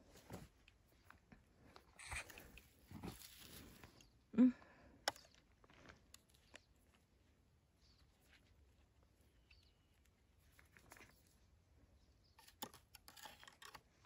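Faint handling noise of wild mushrooms being sorted into a wicker basket: soft rustling with scattered crunches and light clicks, a few a little louder around two to five seconds in.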